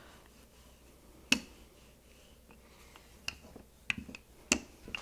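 Sharp clicks and knocks of a wooden rolling pin against a floured wooden board as pierogi dough is rolled out: one about a second in, then a run of several in the last two seconds.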